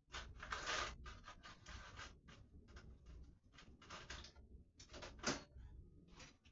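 Irregular rustling and scraping from a hand pressing and rubbing a strip of LED lights against a painted wall, in short uneven strokes, the loudest about five seconds in.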